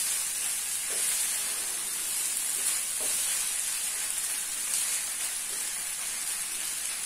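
Cooked hominy with dried shrimp and onion sizzling in oil in a frying pan, stirred with a wooden spoon: a steady frying hiss with a few soft scrapes of the spoon.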